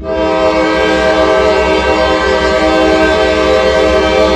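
Norfolk Southern diesel locomotive's air horn sounding one long, loud blast, a chord of several steady tones, over the low rumble of the diesel engine.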